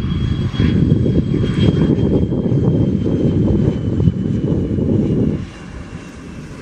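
McDonnell Douglas MD-83 jet airliner with Pratt & Whitney JT8D-219 engines passing low while landing: a heavy jet rumble with a faint high engine whine that slowly falls in pitch, mixed with wind buffeting the microphone. The low rumble drops off suddenly near the end.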